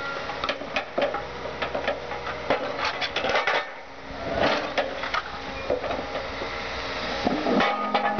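A Volkswagen Jetta Mk2 body being crushed by an excavator: irregular crunching and clattering of metal and glass, with many sharp cracks and clinks.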